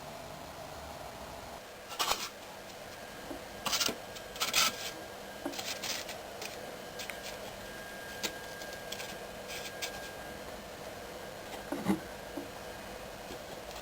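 CNC foam cutter running with a steady machine hum, broken by a few short scratching and rubbing noises of foam being handled or scraped.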